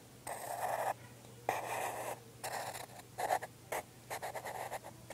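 Pencil scratching on paper as a shirt outline is drawn: a series of short strokes, each under a second, with brief pauses between them.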